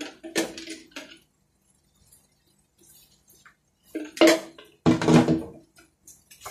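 Short bursts of cookware clatter: a wooden spatula scraping and knocking in a stainless-steel frying pan, once at the start and twice more about four and five seconds in.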